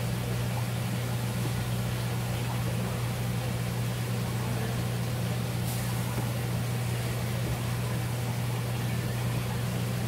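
A steady, low machine hum with an even hiss over it, unchanging throughout; a faint short tick about halfway through.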